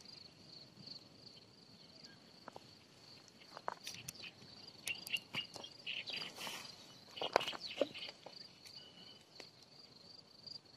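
An insect chirring steadily at a high pitch, with a cluster of light clicks and rustles in the middle.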